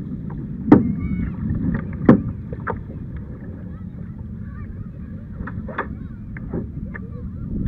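Double-bladed paddle strokes splashing beside a Hobie Compass Duo tandem kayak, with water washing along the plastic hull as a steady low rush. Two sharp knocks come about one and two seconds in, followed by fainter clicks.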